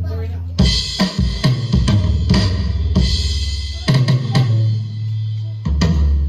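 Alesis Turbo Mesh Kit electronic drum kit played with sticks: a beat of drum hits with crash cymbal strikes about half a second and two and a half seconds in.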